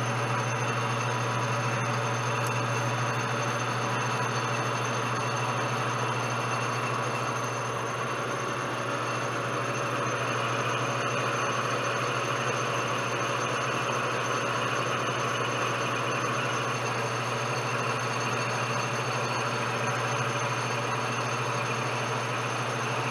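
Metal lathe running under a light turning cut with a positive-rake carbide insert: a steady low motor hum with the even hiss of the cut over it, unchanging throughout.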